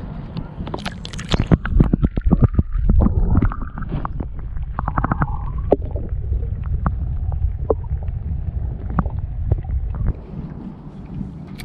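Low wind rumble on the microphone, with a cluster of sharp knocks and clicks about one to six seconds in, from handling gear in a small boat.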